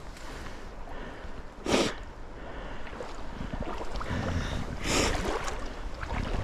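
Mountain stream water running steadily, with two short splashes about two seconds and five seconds in.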